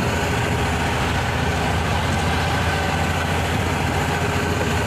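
Boat engine running steadily under way: a dense, even low drone with a constant rushing hiss over it.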